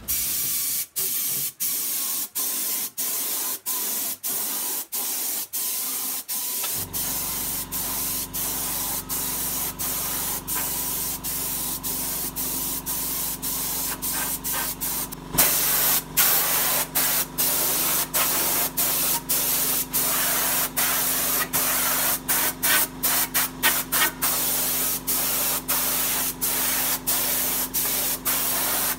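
Compressed-air gravity-feed spray gun hissing as it sprays paint, breaking off briefly again and again between passes. A steady low hum comes in about seven seconds in, and the hiss gets louder about halfway through.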